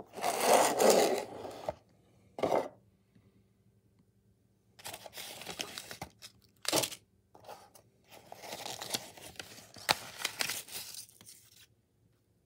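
Cardboard model-train box and paper being handled: the box opened, an envelope and instruction sheet taken out and unfolded, rustling and crinkling in several bursts with a few sharp clicks.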